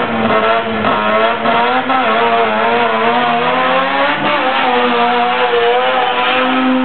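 Suzuki Samurai's rotary engine running hard at high revs, its pitch wavering up and down as the throttle is worked.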